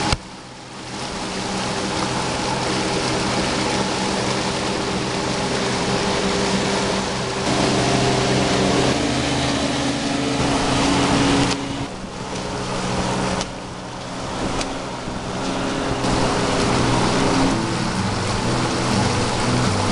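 Outboard motor of a small wooden runabout running at speed, with the hiss of spray and wind. The engine note and loudness change abruptly several times.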